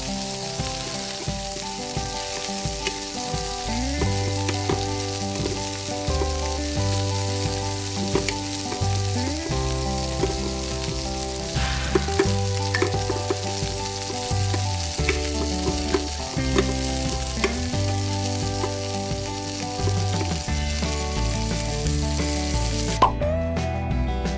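Frying sizzle sound effect, a steady hiss like food in a hot pan, over light background music with a plodding bass line. The sizzle cuts off about a second before the end.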